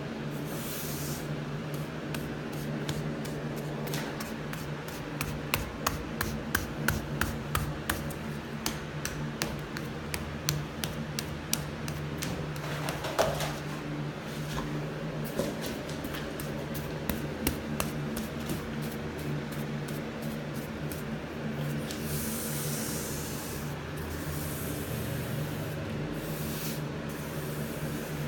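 Primer being applied to old wooden trim: a long run of quick sharp clicks and taps, then a few hissing strokes near the end, over a steady low hum.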